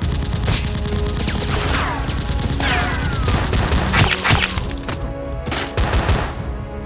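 Background music under a run of sharp gunshot-like cracks and impacts, with two falling whistling sweeps in the first half. The loudest cracks come about four seconds in.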